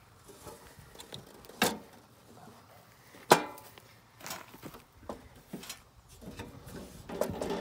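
A sheet-metal electrical meter base enclosure knocks against a wooden post and conduit fitting as it is set in place. There are two sharp clanks, about a second and a half and three seconds in; the second is the loudest and rings briefly. Lighter knocks and scrapes fall between them.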